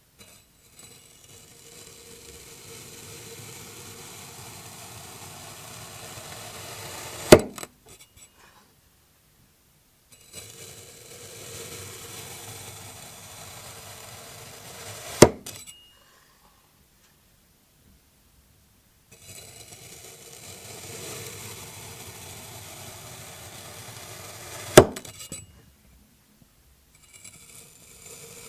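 Crunchy kinetic sand being cut slowly with a blade: a steady gritty crunching that grows a little louder. Each cut ends in one sharp, loud click. This happens three times, with short silences between the cuts.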